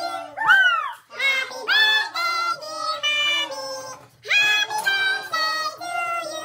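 Group singing in unaccompanied voices, women's and a child's among them, in sung phrases with short breaks about one and four seconds in.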